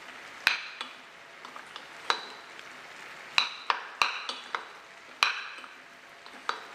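Wooden spoon tossing boiled cassava pieces in a stainless steel saucepan: about ten irregular knocks and clinks of the spoon against the pot, several ringing briefly.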